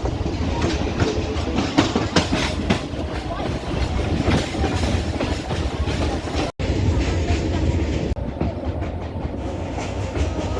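Passenger train running on the rails, heard from on board: a steady low rumble with sharp wheel clicks over the rail joints. The sound cuts out for an instant about two-thirds of the way through.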